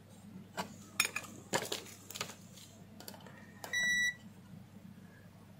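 Light metallic clicks and taps of multimeter probe tips against the inverter board's terminals, then one short high beep from the ANENG Q1 digital multimeter a little past the middle. The beep comes as the meter reads near zero (0.025) across the input, as the just-charged capacitors are discharged through the probes.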